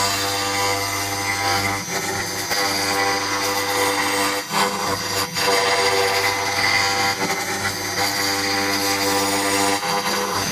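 CNC router spindle milling grooves into a wooden board with an end mill: a steady spindle tone over the noise of the bit cutting wood, with two brief dips about four and a half and five seconds in.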